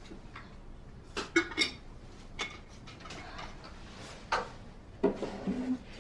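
A few sharp clicks and clinks of hard objects: three in quick succession about a second in, single ones a little later, and a short cluster of knocks near the end.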